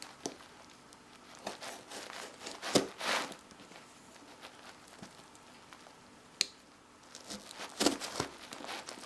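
Cardboard parcel box being handled and opened: intermittent tearing and crinkling with a few sharp clicks.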